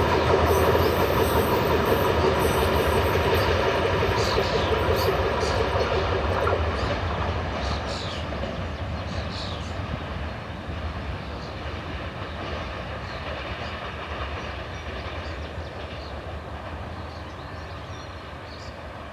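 Freight train of covered hopper wagons rolling past on the rails, with wheels clicking and a few brief high squeals. A steady drone cuts off about six seconds in, and the rolling sound then fades gradually as the train moves away.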